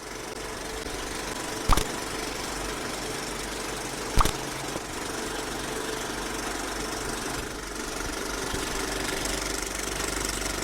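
A steady mechanical hum, like a small motor running, with two sharp clicks, one about two seconds in and one about four seconds in.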